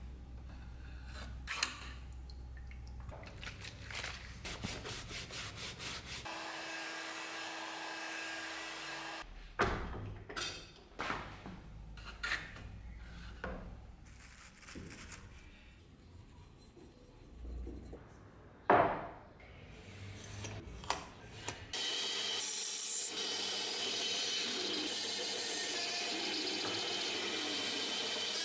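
Scattered workshop handling knocks and clicks, with one sharp loud clank a little past the middle. About three-quarters of the way through, a benchtop band saw starts a steady run as it cuts a wooden block.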